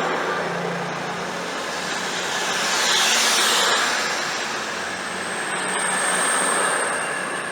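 Class 222 Meridian diesel-electric multiple unit running on the line, its engines and wheels making a broad rumbling noise that swells twice, with a thin high steady whine near the end.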